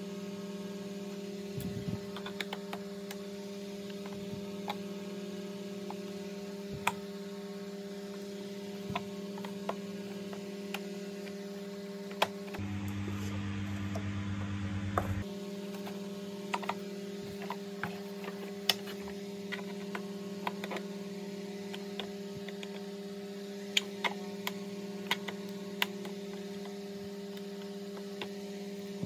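Steady electrical hum, with scattered sharp clicks and taps of the vacuum cleaner's plastic housing being handled, unlatched and pried apart with a screwdriver. About halfway through the hum drops lower, with a hiss, for a couple of seconds.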